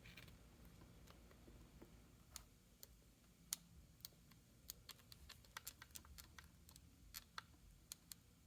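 Faint, irregular crackling clicks from the loose power-plug connector at the back of a USB-C power supply arcing. This is the sign of a poor connection: the connector has worked loose on the board inside.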